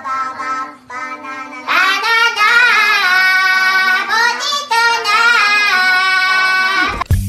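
A group singing together in squeaky, child-like high voices, the effect of helium inhaled from spray cans. A few short phrases come first, then a loud held chorus of long notes that cuts off abruptly near the end.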